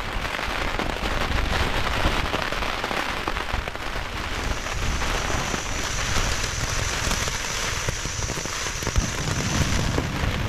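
Rain pattering on a thin, light Dyneema (DCF) tarp, a dense, even spatter of drops, with a low wind rumble underneath.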